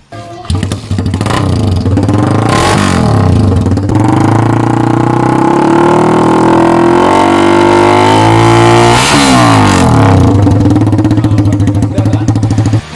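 Kawasaki Rouser LS135 (Pulsar 135) single-cylinder four-stroke engine through an aftermarket NOB1 NeoSS muffler, revving up and held at high revs. The revs dip and climb again about nine seconds in, and the sound cuts off suddenly just before the end.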